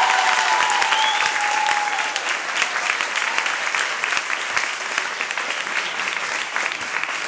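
Audience applauding with many hands clapping. For the first two seconds a single drawn-out cheering shout rings over the claps.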